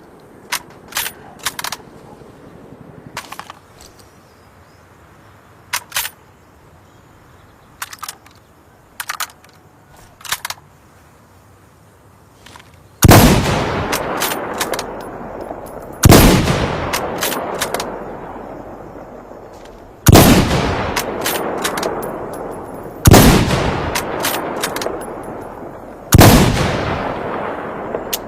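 Mosin-Nagant bolt-action rifle: a series of short, sharp metallic clicks, then five loud shots about three to four seconds apart. Each shot dies away slowly over a couple of seconds, with more clicks between the shots.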